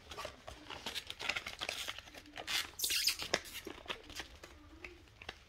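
Card-and-plastic packaging rustling and crinkling in the hands as a trading card theme deck box is pulled open and its contents taken out. The loudest crinkle comes about two and a half to three seconds in, and it quiets near the end.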